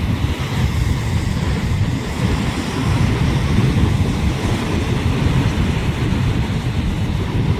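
Strong wind buffeting the microphone, a loud irregular rumble, over the hiss of rough surf breaking.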